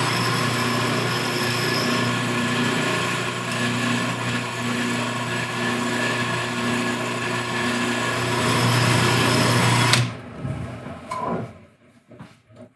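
Powermatic 1150 drill press running with a steady hum on its test run after a repair, sounding good. The hum cuts off suddenly about ten seconds in.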